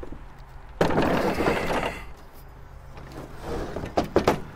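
A push mower being lifted onto a pickup's plastic bed liner: a loud scraping rustle about a second in, then several sharp knocks near the end as the mower's plastic deck and wheels bump against the bed.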